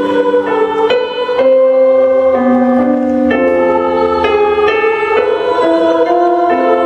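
Mixed choir of men's and women's voices singing slow held chords that change every half second to a second.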